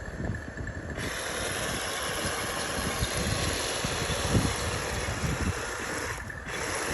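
A toy RC tank's electric drive motors and gearbox whirring steadily as it drives on its tracks. The whir starts abruptly about a second in and cuts out briefly near the end, with scattered low thumps underneath.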